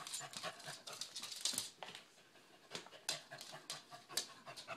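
Dogs shuffling about on a hardwood floor, panting and sniffing, with scattered light clicks from claws and collar tags.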